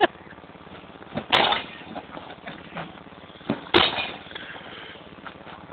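A big wrench striking an object on the ground: three hard blows, the second about a second after the first and the third over two seconds later, with faint clatter between.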